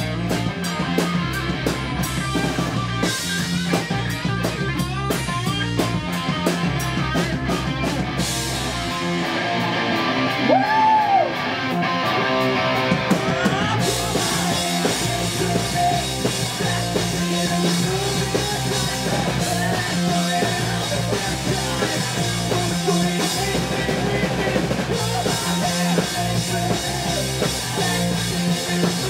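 Live rock band playing: electric guitar, bass and drum kit, with several singers on vocals. About eight seconds in the cymbals drop out for a few seconds, then the full band comes back in.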